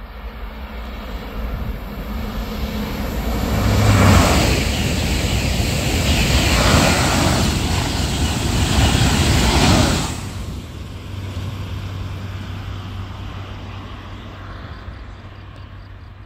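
TGV high-speed train passing underneath at speed: a rushing roar that builds for about four seconds, stays loud for about six, then drops off sharply, leaving a fainter steady rumble.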